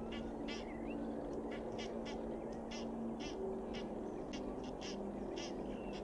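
Egyptian geese calling harshly, many short honks and cackles in quick, irregular succession: the aggressive calling of a fight between two geese.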